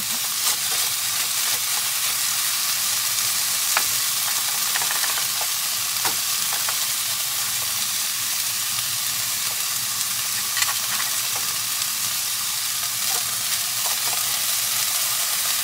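Chicken pieces sizzling steadily as they brown in a non-stick frying pan, with a spatula stirring and now and then clicking against the pan.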